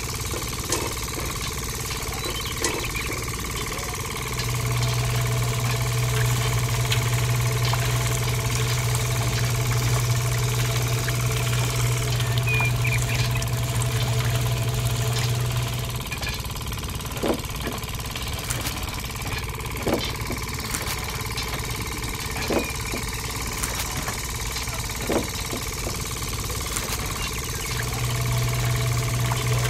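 Small electric motor of a miniature DIY press running with a steady hum, which grows louder for about ten seconds from around four seconds in and again near the end. A few sharp ticks sound in the quieter middle stretch.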